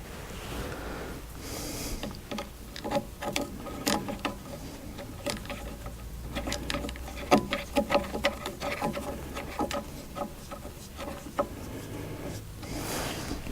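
Hand tools working the gib adjusting screw and lock nut on a bench mill's Z-axis slide: irregular metallic clicks and clinks with short ringing tones.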